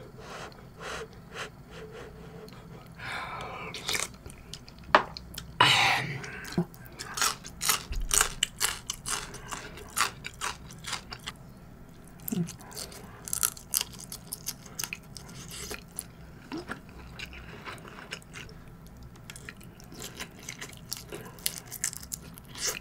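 A person eating: slurping sips of spicy fish stew from a spoon in the first several seconds, then chewing raw shrimp sushi with many quick wet mouth clicks and smacks.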